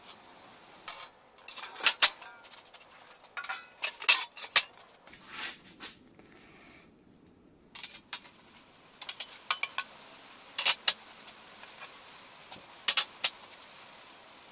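Sharp metallic clinks and clatters in short clusters as small metal parts and fasteners are handled.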